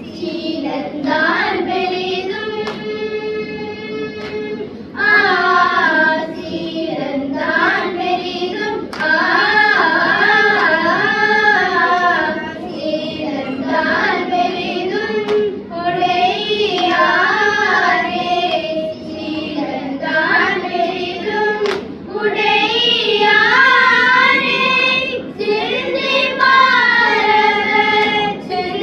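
A group of children singing a Tamil devotional hymn together, the melody bending and wavering in pitch, with short breaks between phrases.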